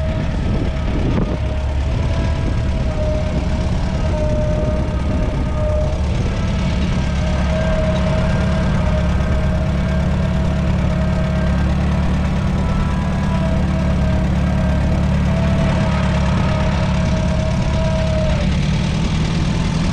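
The 2.5-litre four-cylinder petrol/TVO engine of a 1942 McCormick W-4 Standard tractor running steadily at low speed. A higher, slightly wavering whine sits over it and stops shortly before the end.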